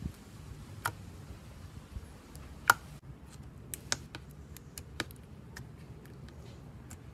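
Clear slime being pressed and stretched by fingers, giving off sharp pops and crackles as trapped air bubbles burst. There are a few separate pops, the loudest about three seconds in, then a run of quicker, smaller clicks in the second half.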